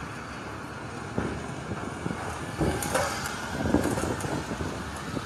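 Motor vehicle engine noise from the street and the demolition site, running steadily, with scattered knocks and clatter about halfway through.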